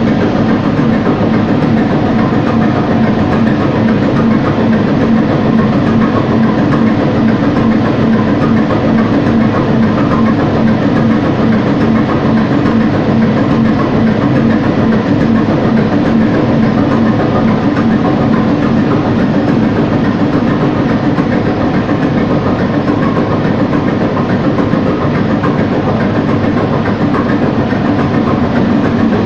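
Large inline multi-cylinder marine diesel engine of a stern-wheel passenger ship, running loudly and steadily at constant speed with an even mechanical clatter.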